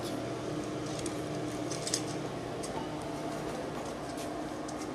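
Steady background hum with a few faint light clicks and rustles as the plastic Lego robot pieces are handled and set down on the floor.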